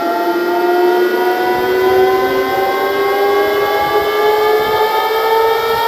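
Siren-like synth riser from a DJ track: a loud tone with several overtones gliding slowly and steadily upward, with a low rumble coming in underneath about a second and a half in.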